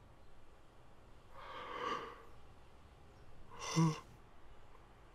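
A young male voice exhaling a long breathy sigh, then a short, louder voiced huff about two seconds later.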